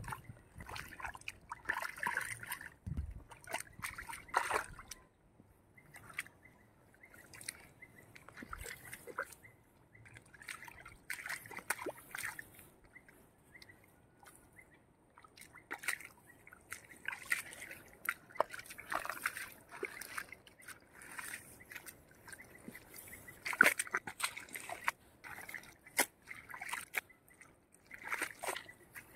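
Pond water and mud sloshing and splashing in short, irregular bursts, with some trickling, as the shallow water is stirred up.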